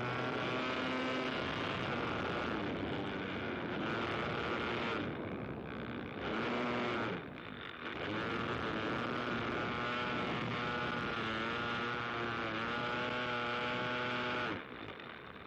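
An aircraft engine running, its pitch wavering up and down. It drops away briefly about five and seven seconds in and cuts off sharply near the end.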